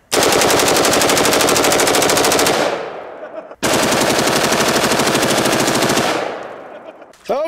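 A full-auto AR-15 firing 5.56 mm rounds in two long bursts of rapid fire, each about two and a half seconds, with about a second's pause between them. Each burst is followed by a fading echo.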